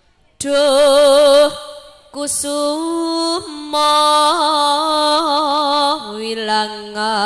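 Solo female voice singing long, held notes with a wide wavering vibrato, amplified through a microphone, with short breaths between phrases and no other instrument standing out.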